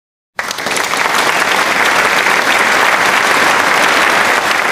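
Applause from many hands clapping, starting suddenly after a moment of silence and going on steadily.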